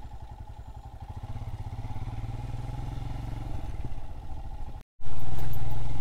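Motorcycle engine running steadily while riding. About five seconds in it cuts out for an instant, then comes back louder.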